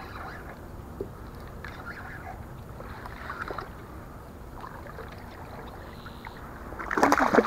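Hooked largemouth bass splashing at the surface beside a kayak as it is pulled in. Small splashes and water slosh, then loud thrashing splashes about seven seconds in.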